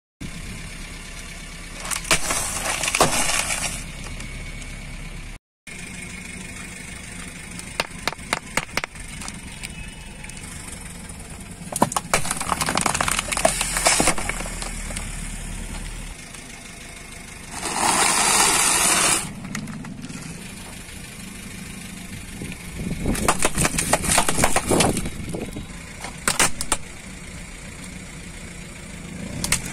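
A car tyre rolling slowly over things on asphalt and crushing them: several separate spells of crinkling and crackling as chip bags and plastic give way, with sharp snaps and clicks of breaking plastic. About two-thirds of the way through there is a loud hiss lasting over a second. The car's engine runs steadily underneath.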